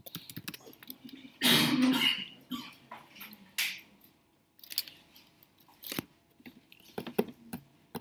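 Computer keyboard keys clicking as a short terminal command is typed, then a single loud cough about a second and a half in, followed by a few fainter scattered clicks.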